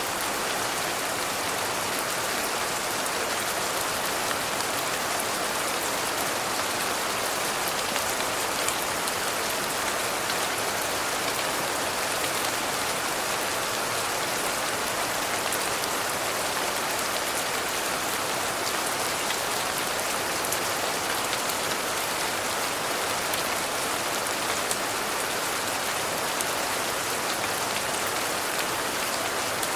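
Steady rain falling, an even hiss with a fine patter of individual drops, unchanging throughout.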